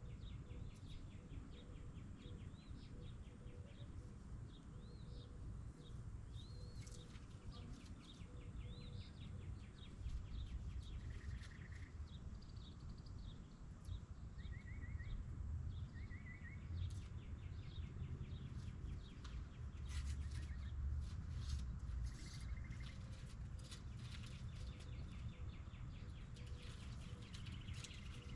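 Birds chirping and trilling on and off, over a steady low rumble, with scattered sharp clicks in the second half.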